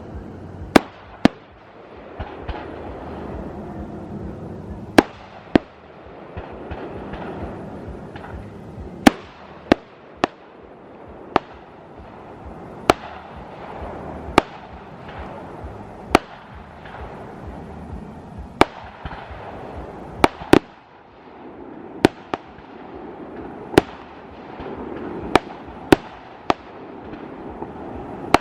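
Fireworks display: sharp shell bursts every second or two, over steady crackling and fizzing from the effects.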